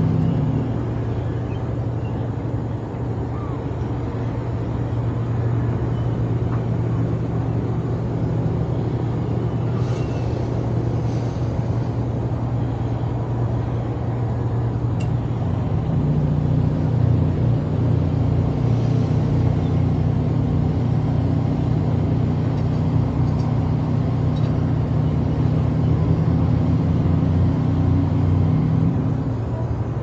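A steady low engine drone, its tone shifting about halfway through and easing off near the end.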